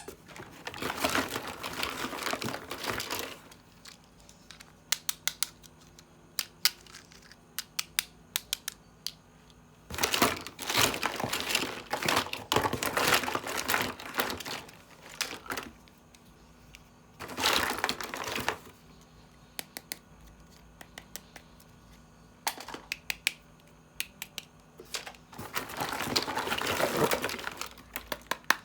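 Plastic toy packaging crinkling in several long stretches, with many small clicks and taps of hard plastic toy parts being handled in between.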